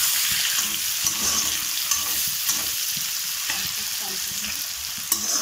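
Chopped onions sizzling in hot oil in a metal kadai while a metal spatula stirs them, with a sharp clack of the spatula on the pan near the end.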